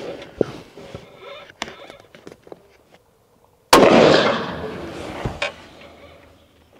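A single rifle shot from a Howa 1500 Superlite, a short-barrelled lightweight bolt-action hunting rifle, about four seconds in; its report dies away over about a second and a half. A few small sharp clicks come before it and one more follows.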